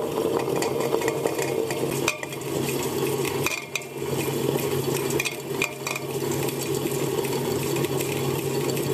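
Half-size stone nut butter grinder running just after switch-on: a steady motor hum under a gritty, rattling rasp as the grinding stones roll over the stone bed and crush ground raw sunflower seeds being poured in slowly, with scattered light clicks.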